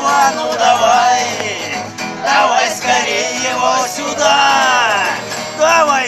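Classical guitar strummed while several voices sing along.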